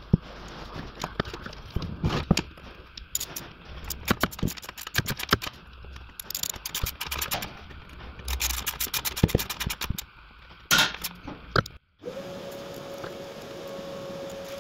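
Ratchet wrench on a long socket extension clicking in quick runs as bolts are turned up under the car, mixed with metal tool clatter and handling knocks. It cuts off suddenly near the end, giving way to a steady hum with a faint high tone.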